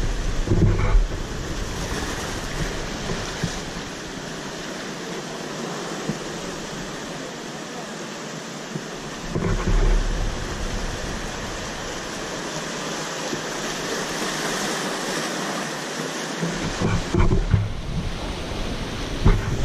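Ocean surf breaking and washing over shoreline rocks, a steady rush of water. Wind buffets the microphone in a few low gusts: about a second in, near the middle, and again near the end.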